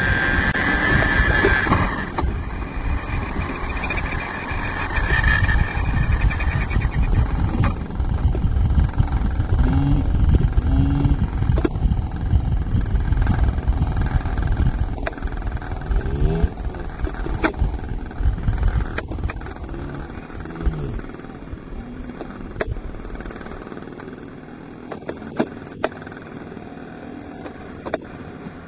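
A radio-controlled model helicopter's motor and rotor whine overhead and cut off about two seconds in as the helicopter goes down. After that, wind rumbles on the microphone, with a few short calls in the middle and scattered clicks near the end.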